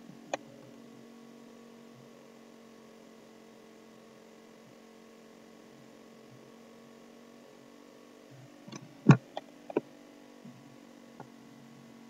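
Steady faint electrical hum, with a single sharp mouse click about a third of a second in and a quick cluster of clicks around nine seconds in, the loudest a deeper thump, followed by two faint ticks.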